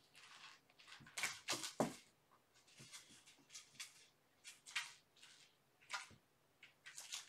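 A kitten scuffling and pouncing at play: a run of quick, scratchy scrapes and pats, with a cluster of louder knocks about a second in.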